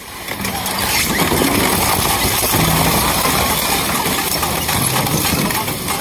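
Industrial shredder's rotating cutters tearing into a refrigerator panel and its foam insulation: a loud, continuous grinding and crackling of sheet metal and plastic that rises sharply about half a second in.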